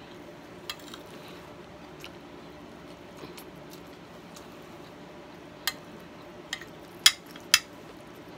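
Metal spoon clinking against a glass baking dish while scooping rice and fish: a few sharp clinks, the loudest two about half a second apart near the end.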